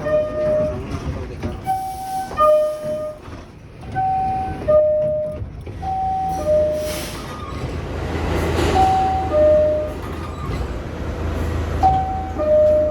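Subway car door chime playing its two-tone ding-dong, a high note then a lower one, over and over about every two seconds above the train's steady low hum. A rush of noise swells and fades about nine seconds in.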